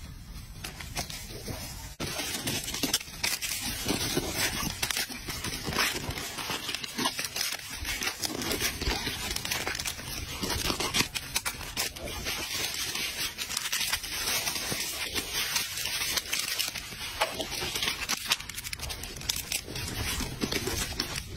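Macaques crinkling and tearing plastic snack wrappers: a busy crackling rustle that picks up about two seconds in.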